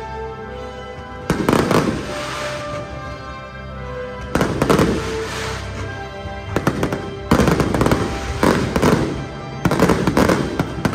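Fireworks bursting in repeated volleys of rapid crackling bangs, every one to three seconds, thickest in the second half, over loud show music.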